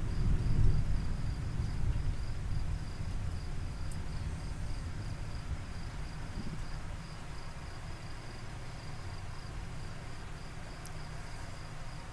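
A low rumble of thunder swells about half a second in and slowly dies away. Crickets chirp in a steady pulsing rhythm.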